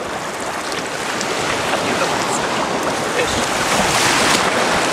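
Small sea waves washing in the shallows around the wader's legs, with wind on the microphone; the wash swells louder a little after three seconds in.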